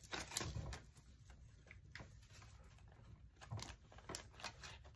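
Faint rustling and flicking of paper banknotes as they are counted by hand and slid into a cash envelope in a ring binder, with a few soft taps and rubs of paper.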